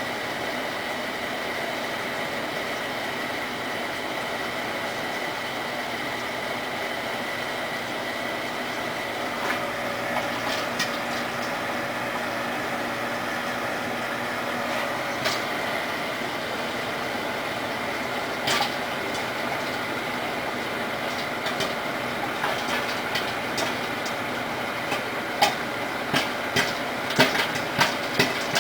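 Microwave oven running with a steady hum while popcorn kernels in a Nordic Ware popper bowl start to pop: a few scattered pops at first, then pops coming quicker and closer together near the end.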